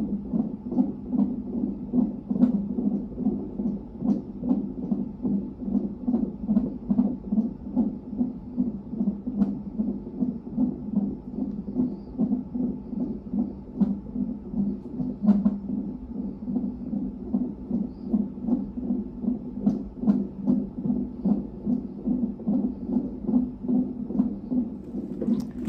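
Fetal heartbeat played through the speaker of a Corometrics electronic fetal monitor. It is a rapid, even train of whooshing Doppler pulses, about two a second, from the baby's heart as the ultrasound transducer picks it up during a non-stress test.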